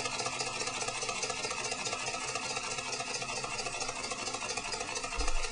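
Compressed-air model beam engine running at about its minimum speed on low air pressure, with a steady rhythm of fast mechanical ticks from its moving parts. A brief low thump comes near the end.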